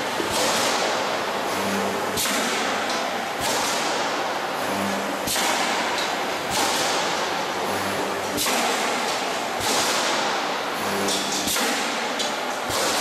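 Transformer radiator panel production line machinery running: a loud, steady hiss with sharp cracks every one to two seconds and a faint low hum that comes and goes.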